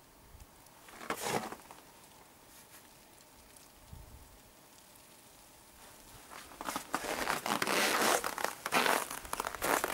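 Boots crunching on frozen, crusty snow: one short crunch about a second in, then a longer run of crunching steps from about six and a half seconds on.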